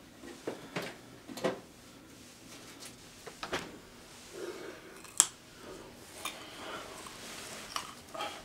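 Small handling sounds at a kitchen counter: scattered light clicks and knocks, the sharpest a single click about five seconds in.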